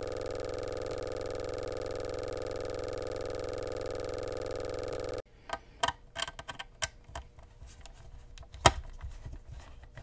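A steady, even buzzing drone with many overtones cuts off abruptly about five seconds in. After it come light clicks and taps from fingers handling a MacBook Pro's aluminium bottom case, with one sharper tap near the end.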